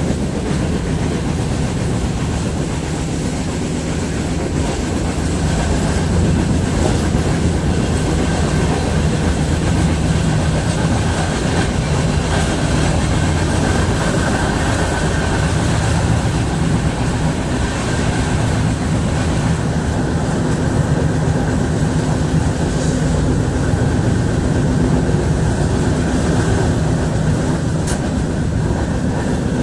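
Steady, continuous running noise of a moving vehicle: an even rumble with a faint steady whine over it.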